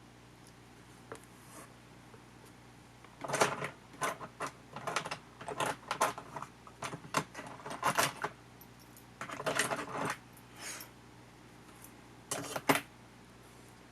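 Light clicks and small metallic rattles of camcorder parts and tools being handled during disassembly. They come in irregular clusters, starting about three seconds in and stopping near the end.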